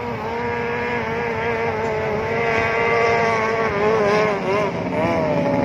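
Racing powerboat's engine running at high revs with a steady whine. The pitch wavers, dips briefly about four and a half seconds in, then climbs again.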